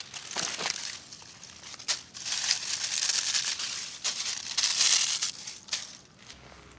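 A handful of dry leaves crumpled and crushed in a hand and dropped onto gravel, a dry crackling rustle lasting about three seconds, loudest in the middle. A few short crunches on gravel come before it.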